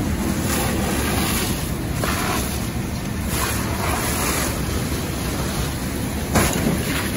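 A large fire of burning debris and a fire hose stream played onto it, making a steady dense rush with a low rumble beneath. A single sharp pop comes about six seconds in.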